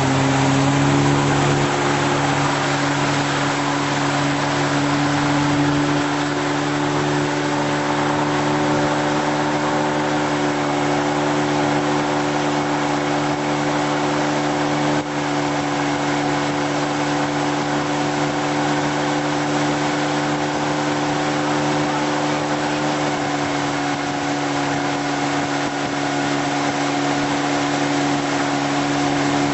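Motorboat engine running at a steady towing speed, a constant drone, over the hiss of wake and wind.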